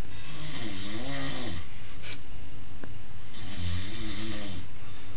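Snoring while asleep: two long snores, each about a second and a half, about three seconds apart, each with a wavering, rising-and-falling tone over a breathy hiss.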